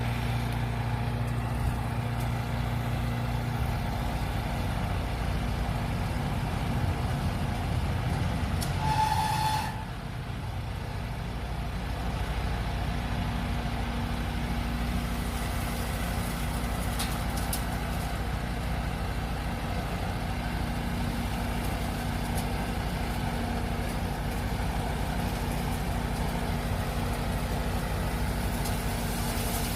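Engine machinery running steadily at a constant speed, with a short high beep about nine seconds in.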